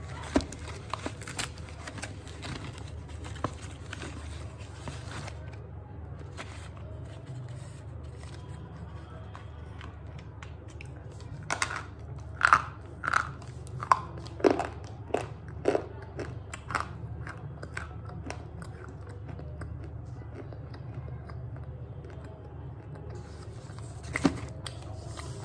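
Slate pencil bitten and crunched between the teeth: a run of sharp crunches in the middle. Light clicks and rustles of the cardboard pencil box being handled come near the start and end.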